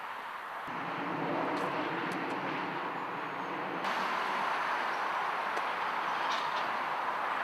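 Steady hiss of distant vehicle noise, with a few faint high ticks. The background changes abruptly twice.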